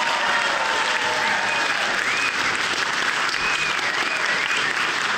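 Audience applauding steadily, with a few high calls rising over the clapping.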